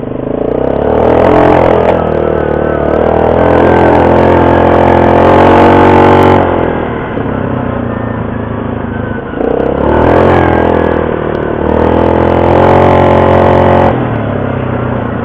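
ATV engine heard from the rider's seat, revving up hard as the quad accelerates, held at high revs, then easing off about six seconds in. It accelerates hard again at about ten seconds and lets off near the end.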